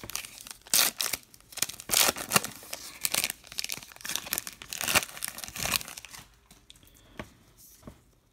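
Foil-lined trading card pack wrapper being torn open and crinkled by hand: a run of sharp crackles for about six seconds, dying down to fainter rustles near the end.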